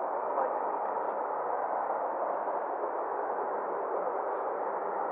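Steady hiss of an airband radio receiver between transmissions, cut off sharply above the upper speech range, with a few faint short squeaks.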